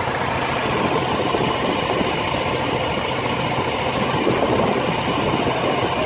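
Small boat's engine running steadily under way, heard close up from aboard the boat.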